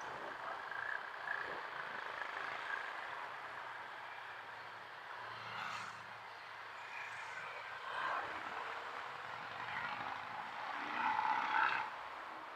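Motorcycle riding in slow city traffic: steady engine and road noise from the bike and the vehicles around it, swelling briefly near the end.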